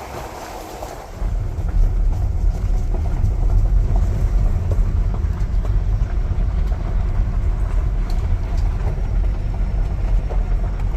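Car driving along a rough farm track: a heavy low rumble of the tyres and car body sets in suddenly about a second in and carries on, with small rattles and clicks over it.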